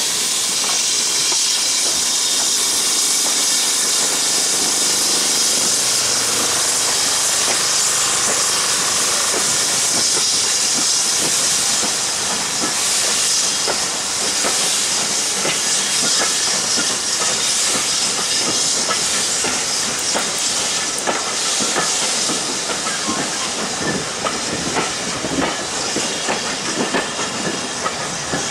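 BR Standard Class 4 tank locomotive hissing steam as it pulls a train of coaches slowly away. From about twenty seconds in, the coach wheels click over the rail joints as they roll past.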